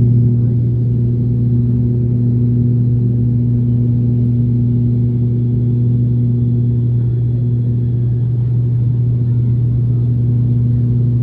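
Cabin noise of an ATR 72-600 turboprop airliner in descent: the steady, loud drone of its propellers, one deep hum with a few higher overtones, over a rushing hiss.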